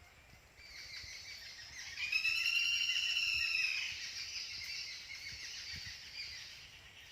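Birds chirping outdoors, with one long drawn-out call, gently rising then falling in pitch, lasting about two seconds from about two seconds in.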